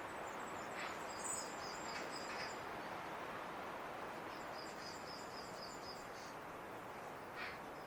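Robin singing: two phrases of high, thin, quickly repeated notes, with a few short separate chirps, over a steady background hiss.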